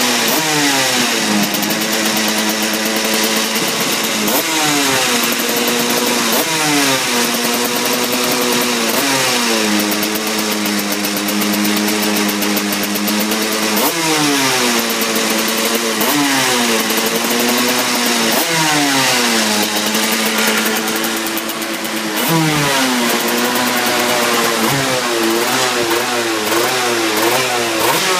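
TM K9C 125 cc KZ two-stroke kart engine being warmed up. The throttle is blipped every few seconds, so the revs rise sharply and fall back to a fast idle, and the revs waver up and down over the last few seconds.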